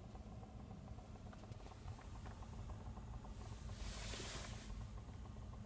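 2017 Kia Rio heater blower fan running with a rapid, irregular ticking knock over a low hum: the knock is the fan's fault. A brief hiss rises and fades about three and a half seconds in.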